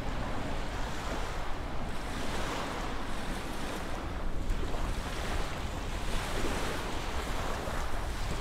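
Jet engine noise from a Boeing 787 Dreamliner's two engines on a low display pass: a steady, broad rushing sound over a deep rumble. Wind buffets the microphone.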